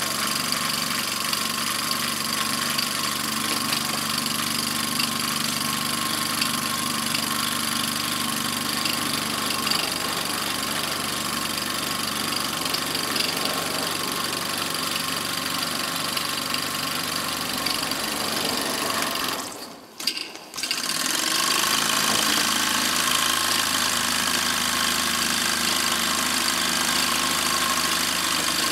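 Mamod TE1A live-steam model traction engine running steadily, driving a Meccano drum winch. The sound drops away briefly about two-thirds of the way through, then carries on.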